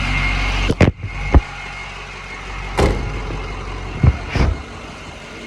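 Box truck engine idling with a steady low hum, then two sharp knocks about a second in, after which the engine sound drops much lower. A few more separate knocks and clicks follow.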